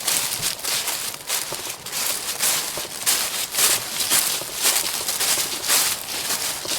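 Dry leaves and brush crunching and rustling in quick, uneven strokes, several a second.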